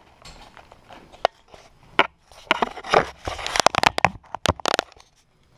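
Clicks, knocks and crackles of an old mushroom ceiling-light fixture and the rusty debris inside it being handled. The sounds are sparse at first and become a dense run of clattering and crunching about halfway through.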